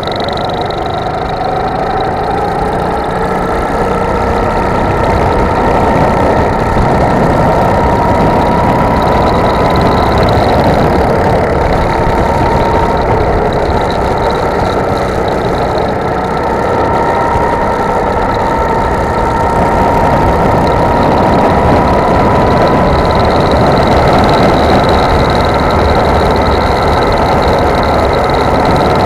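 Go-kart engine running continuously under way, its pitch rising and falling gently as the kart speeds up and slows through the corners.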